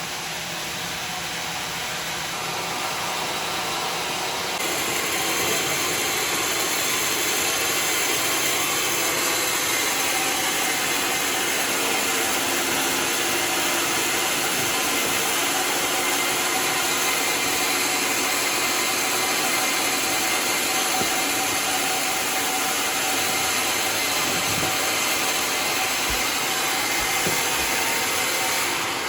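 Sawmill saw cutting through a bayur log, with its motor running steadily under load. The cutting noise grows louder about four seconds in and drops off near the end.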